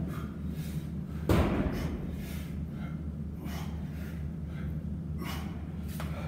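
A person breathing hard in short, hissy breaths while doing pull-ups on a gym rack, with one heavy thump about a second in, over a steady low hum.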